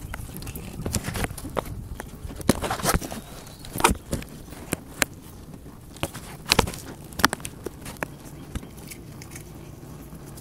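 Irregular clicks and knocks of a screwdriver and fingers working a loose engine block heater in the freeze-plug port of a 6.2 diesel block. The heater can be turned but will not come out.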